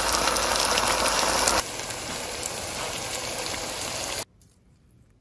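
Curry sauce sizzling and bubbling in a frying pan, as a steady hiss. It drops to a quieter sizzle after about a second and a half, then cuts off to near silence about four seconds in.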